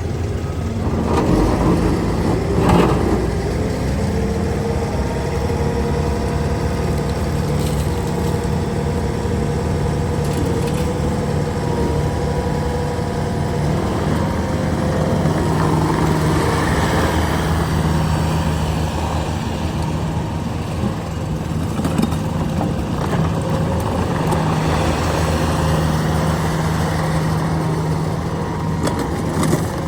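Bobcat T770 loader's diesel engine running steadily, with a brief knock about three seconds in.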